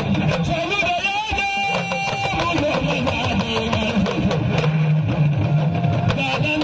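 Hausa kalangu hourglass talking drums playing dambe music as an ensemble, with continuous strokes whose pitch shifts up and down, amplified through a sound system.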